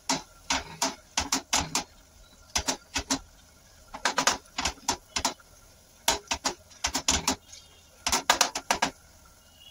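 Metal potato masher mashing and stirring a thick vegetable masala in a nonstick frying pan. Its head knocks and scrapes against the pan in irregular bursts of clinks, with short pauses between.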